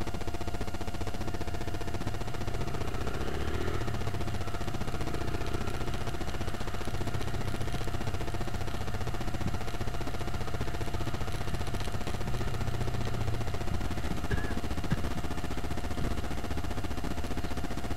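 Motorcycle engine running at low speed in town traffic, heard from a camera mounted on the bike, as a steady low rumble with a thin steady whine over it.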